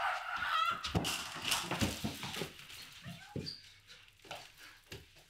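People scuffling and grappling: a high cry rising in pitch at the start, then a run of short knocks and brief vocal noises that die down towards the end.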